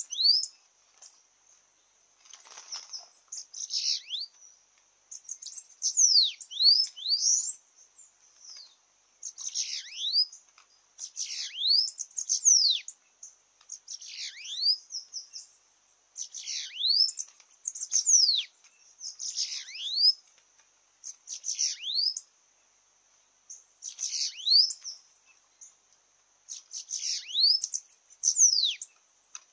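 Bananaquits singing: repeated short phrases of high, thin notes that sweep steeply downward, a phrase about every two seconds, over a steady high hiss.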